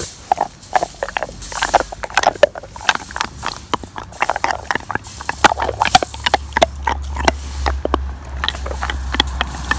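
Bernese mountain dog sniffing and snuffling right at the microphone, with quick irregular licking and mouth clicks as it noses at a hand.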